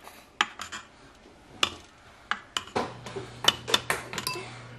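A spoon clinking and knocking against a stainless steel Instant Pot inner pot and dishes during stirring and serving: about ten sharp clinks at irregular intervals. A low steady hum comes in a little past halfway.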